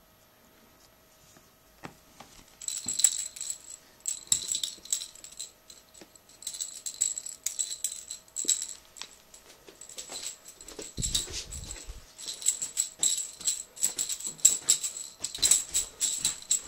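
A cat gnaws on a stick, making rapid, irregular crunching and clicking that starts about two and a half seconds in and keeps going in quick clusters.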